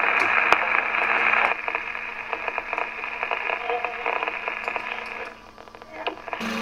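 Radio static with crackle and scattered clicks, played through the machine's loudspeaker horn. It is dense and loud with a steady hum for the first second and a half, then thins to softer crackling, and drops away briefly shortly before the end.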